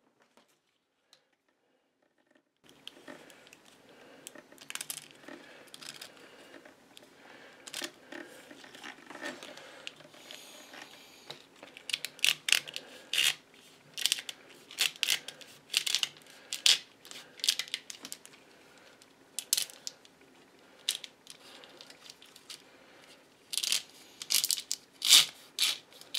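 Corrugated plastic split loom crackling and clicking as a 3D-printed zip tool is slid along it, spreading the slit and pushing wires in. After a couple of seconds of quiet, an irregular run of sharp clicks and rustles starts, growing louder and denser in the second half.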